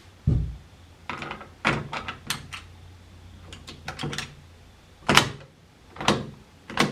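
Mauser K98k bolt action being handled and worked: a dull thump, then a run of sharp metal clacks and short sliding scrapes, the loudest about five seconds in.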